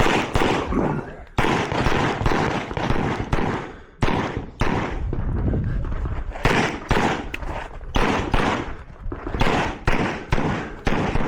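Handgun firing a USPSA stage: rapid strings of pistol shots echoing off the range, broken by short pauses about 1.3 and 4 seconds in.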